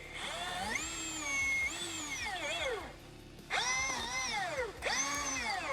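Milwaukee M18 Fuel 20-inch dual-battery cordless chainsaw's electric motor whining up to speed and winding down three times as the trigger is squeezed and released, the first run longest with small dips in pitch.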